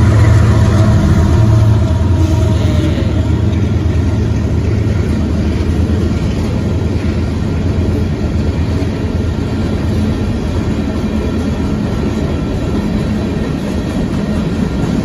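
Freight rock train passing: the diesel locomotives' engines rumble loudly for the first few seconds, then ease off as the string of loaded hopper cars rolls steadily by on the rails.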